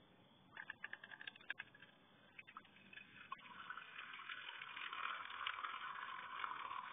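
Fresh-pressed apple juice streaming from a wooden cider press into a container, a steady trickle that starts about three seconds in and grows louder. Before it, a quick run of sharp clicks.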